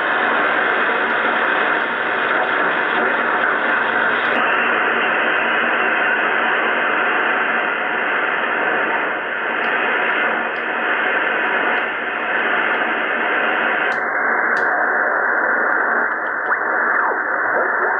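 Drake R77 shortwave receiver's loudspeaker giving steady band-noise static while it is tuned across the 20-metre amateur band, with no station in. The hiss turns duller in two steps, about four and fourteen seconds in. Faint whistles glide in pitch near the end.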